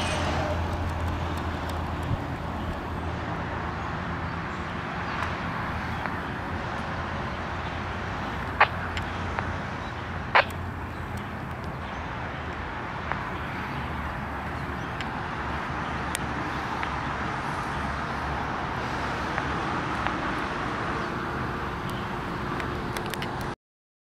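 Steady hum of distant road traffic, with two sharp clicks about two seconds apart near the middle. The sound cuts off abruptly near the end.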